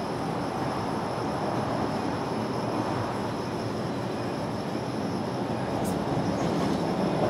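Steady, even outdoor background rumble with no change in level. The cats make no sound, and there is one faint tick near the end.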